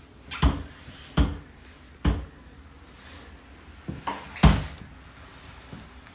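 A handful of dull thumps and knocks in a small room. Three come evenly spaced in the first two seconds, then a cluster of three arrives about four seconds in, the last of them the loudest.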